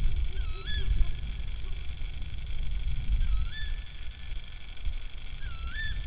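Tawny owl giving three short, sharp rising 'kewick' calls about two and a half seconds apart, over a steady low rumble.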